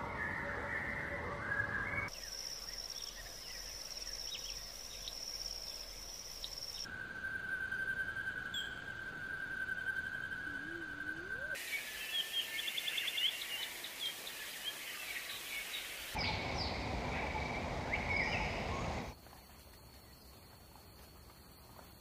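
Wild birds chirping and singing outdoors in a run of short clips, the sound changing abruptly every few seconds. One stretch holds a steady high note and another a quick trill. The last few seconds are much quieter.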